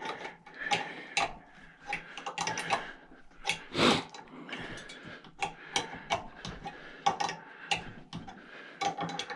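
Irregular metallic clicking and scraping as a wrench works a brass gas jet slowly out of its threads in a cast aluminium barbecue burner, with one louder clack about four seconds in.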